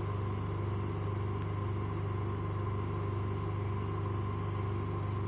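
Electric motor of a 20 L rotary evaporator rig humming steadily at a constant pitch, with a strong low hum and a fainter higher tone above it.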